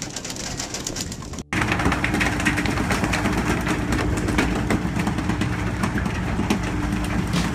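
Open-deck sound of a fishing boat at sea. After a brief dropout about a second and a half in, a steady low engine hum runs under wind and sea noise, with frequent knocks and clatter from the poles, gear and fish on deck.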